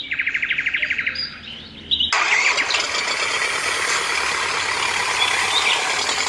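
A quick trill of about a dozen chirps, then from about two seconds in a loud, steady rushing vehicle sound effect as the toy tractor pulls the water tanker away.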